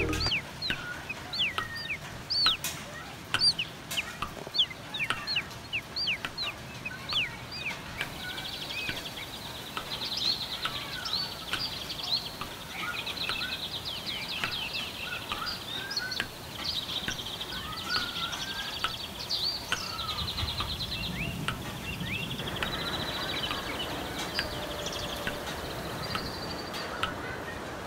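Birds calling from trees: many short, sharp whistled chirps, joined from about eight seconds in by fast buzzing trills.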